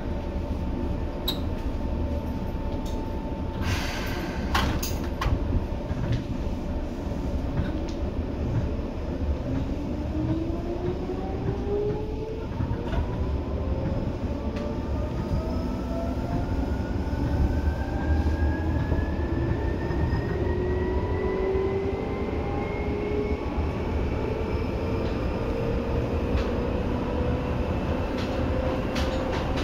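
Seibu 2000 series electric train heard from inside the car, with a low running rumble and a few sharp clicks early on. From about a third of the way in, the traction motors' whine rises steadily in pitch as the train accelerates.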